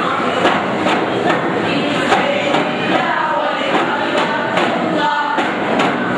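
Daff muttu: daf frame drums struck together in a steady beat, a little over two strikes a second, under a group of voices singing in chorus.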